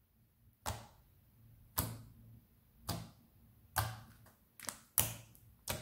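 Fingertips pressing into a thick, clicky slime made with American milk glue, each poke giving a sharp wet click. Seven clicks, about one a second, coming faster near the end.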